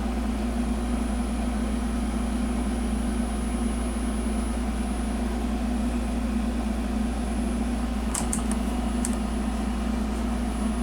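Steady low mechanical hum of a running machine, with a few faint clicks about eight seconds in.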